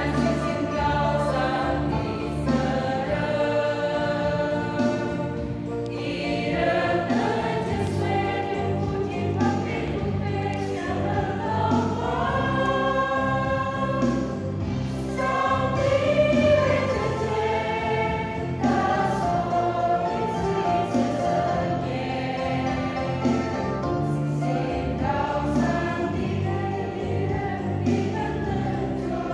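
Mixed choir of women's and men's voices singing a hymn in Indonesian, the sung lines going on without a break.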